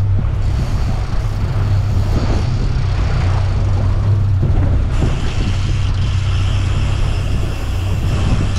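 Boat engine running steadily as the boat is underway, a loud low drone with a hiss over it; a higher hiss joins about five seconds in.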